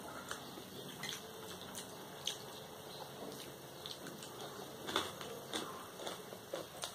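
Faint sounds of people eating rice and curry with their hands: chewing, and fingers squishing rice on plates, with scattered small clicks, the loudest about five seconds in.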